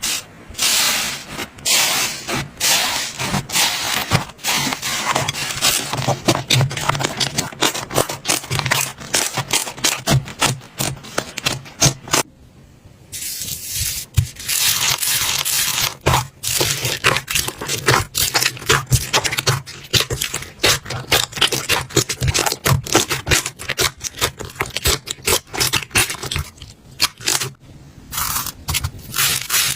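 Slime being squished and worked, giving a dense run of crisp crackling clicks and scraping, with a brief pause about twelve seconds in.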